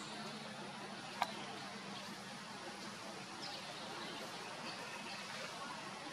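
Outdoor background hiss with a few faint, short, high chirps, and one sharp click about a second in.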